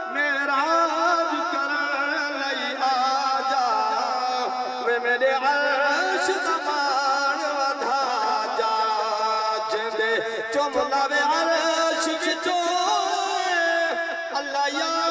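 A man singing a naat, drawn-out wavering melodic notes with no clear words.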